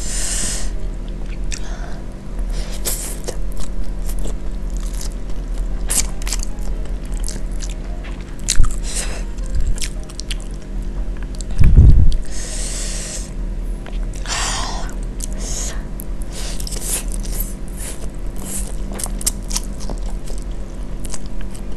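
Close-miked eating of cheese-coated fried instant noodles: wet chewing and mouth clicks, with noodle slurps near the start, about twelve seconds in and about fifteen seconds in. A dull thump comes about twelve seconds in.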